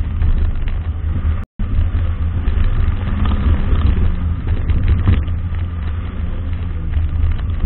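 Nissan Micra K11 driving at low speed, its engine running under a heavy low rumble of wind and road noise on the car's outside-mounted camera. The sound drops out completely for a split second about one and a half seconds in.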